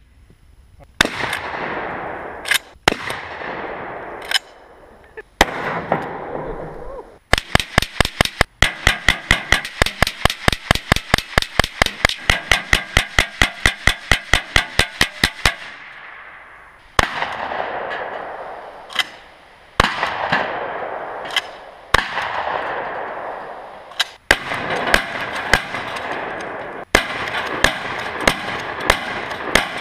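Gunfire from long guns. First come single shots, each trailing off in a long echo. Then a rapid, even string of about five shots a second lasts some eight seconds, followed by more single shots and a quicker, irregular series near the end.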